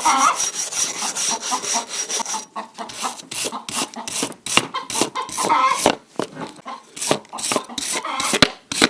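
A stiff brush scrubbing dirt off a petrol grass trimmer in quick back-and-forth strokes, about three a second.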